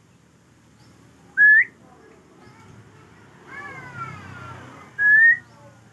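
Hill myna giving two loud, short rising whistles, one about a second and a half in and one near the end, with a softer run of falling notes in between.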